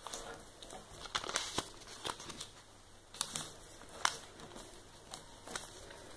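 A square sheet of origami paper rustling and crinkling as its corners are folded in to the centre crease and pressed flat with the fingers, in scattered short crackles.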